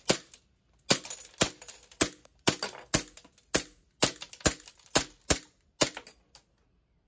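Green-gas blowback airsoft Glock pistol fired semi-automatically: about a dozen sharp shots, roughly two a second, each with a short glassy ring as the BBs strike a glass goblet. The last shot is fainter.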